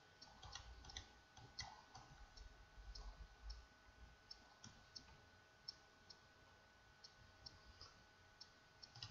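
Faint, scattered computer mouse clicks, roughly one or two a second, over near-silent room tone with a faint steady hum.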